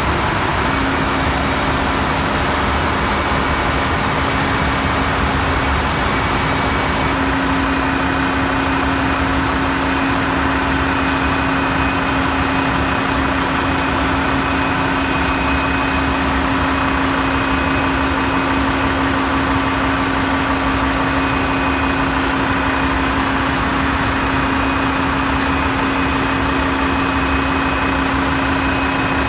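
Steady engine-room machinery noise from a ship's running diesel engines and auxiliaries, an even din with a steady hum that comes in about a second in.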